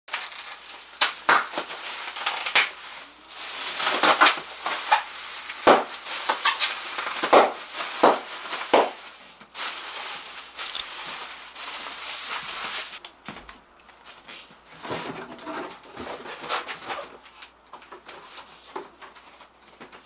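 Rustling and crumpling of plastic bags and cardboard, with scattered knocks and clatter of things being moved about a small room. Busy for the first two-thirds, then sparser and quieter.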